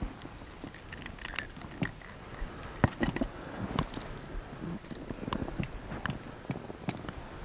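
Scattered light clicks, taps and scrapes of a fishing pole and gear handled at the edge of an ice hole, with a few sharper knocks about three seconds in.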